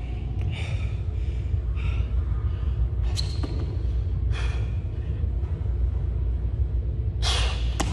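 A man's hard, sharp exhalations while doing burpees, about one every second and a half, over a steady low rumble; the loudest breath comes near the end.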